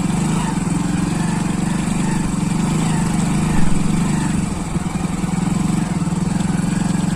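Hero Splendor Plus BS6 fuel-injected single-cylinder engine running steadily. The bike has an unexplained fault that makes a rapid tick-tick-tick noise from its front end at 30–40 km/h.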